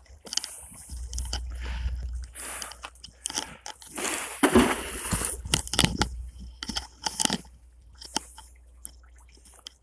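Irregular scraping, crunching and clicking as a rope is handled against a bridge guard rail while a homemade well bailer is lowered on it into the river. A louder rushing noise comes about four and a half seconds in, with wind rumble on the microphone in the first couple of seconds.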